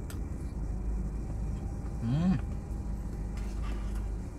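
A man chewing a mouthful of food gives a short rising "mmm" hum about two seconds in, over a steady low rumble inside the car cabin.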